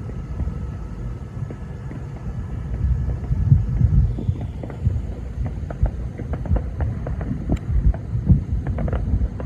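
Thousands of distant fireworks merging into an unending low rolling rumble, like rolling thunder. Many sharp pops and cracks from nearer fireworks come through it, growing frequent from about halfway in.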